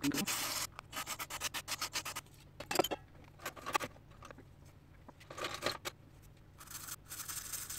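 Rubbing and scraping handling noises in irregular bursts, several short clusters of quick scratchy strokes and a few longer rough hissing stretches.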